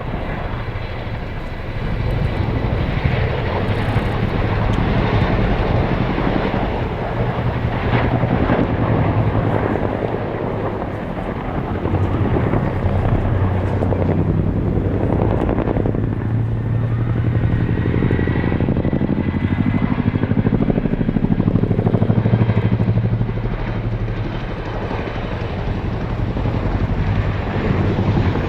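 Chinook tandem-rotor helicopter flying its display: rapid rotor-blade beating over the steady run of its turbine engines, loud throughout, swelling and easing several times as it manoeuvres.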